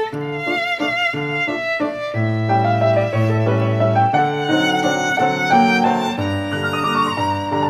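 Instrumental background music: a violin melody with vibrato over a steady bass line.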